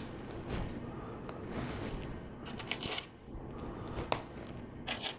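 Small plastic LEGO pieces clicking and clattering as they are handled and pressed together, with a few sharp clicks over softer rustling, the loudest about four seconds in.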